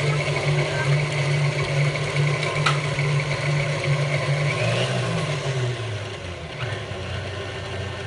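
Tilt-head stand mixer running on high, its beater creaming butter, sugar and eggs in a stainless steel bowl, a steady motor hum. About five seconds in, the hum falls in pitch.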